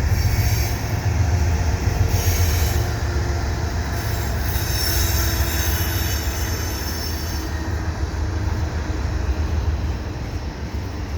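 Freight train rounding a curve: steel wheels squealing against the rail in high-pitched bursts, the longest lasting a few seconds midway, over a steady low rumble of the passing train.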